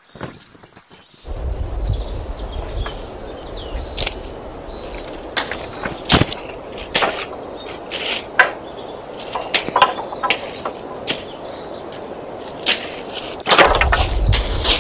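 Irregular sharp knocks and cracks, one every half second to second, over a low rumble. A bird gives a quick run of high chirps at the very start.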